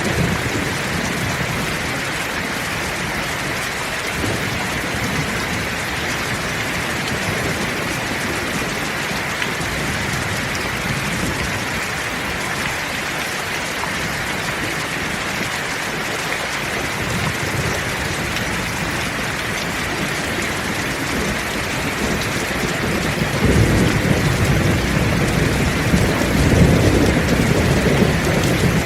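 Heavy rain falling steadily, with a low rumble of thunder that swells near the end.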